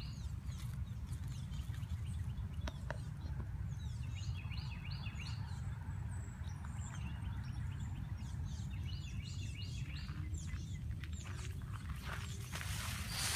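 Small birds chirping, in clusters of short repeated calls, over a steady low rumble.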